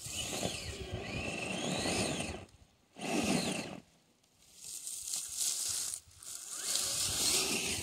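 Radio-controlled crawler truck driving over dry leaves and pine needles: its electric motor whines, rising and falling in pitch with the throttle, while the tyres crunch and scrape through the litter. It goes in three spells with short pauses between, the last one the longest.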